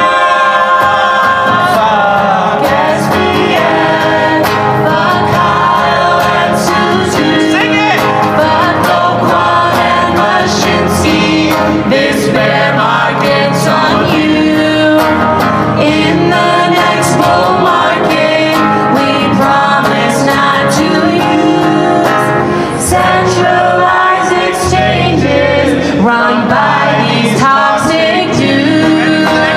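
Live vocal music: a man and a woman singing a song into microphones over instrumental backing with a steady beat, played through a PA system.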